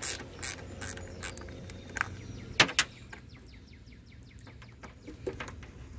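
Ratchet wrench clicking and metal tools knocking as the 10 mm nut on a car battery terminal clamp is undone, with a run of quick, even ratchet clicks in the middle and the loudest knock about two and a half seconds in.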